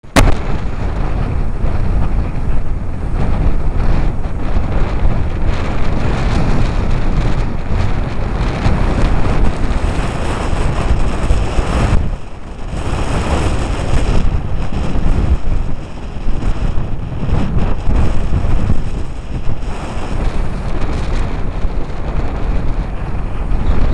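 Storm wind buffeting the microphone in heavy gusts over the rush of heavy surf breaking on a rocky shore, with a brief lull about halfway through.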